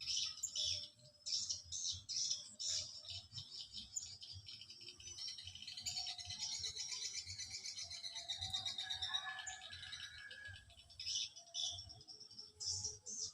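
Small birds chirping, with quick high calls repeating throughout and a fast, dense trill from about five to ten seconds in.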